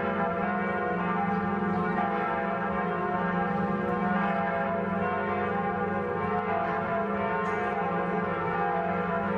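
Church bells ringing continuously, many overlapping tones sounding together with no pause.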